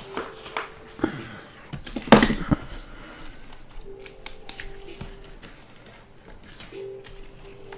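Trading cards in rigid clear plastic holders being handled and shuffled by hand: scattered plastic clicks and rubbing, with a louder clatter about two seconds in.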